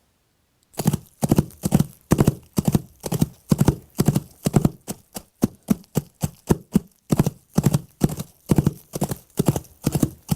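Foley horse-hoof props struck in a steady trotting rhythm to imitate a horse's hoofbeats, starting about a second in, with clusters of sharp clip-clop strikes about two to three times a second.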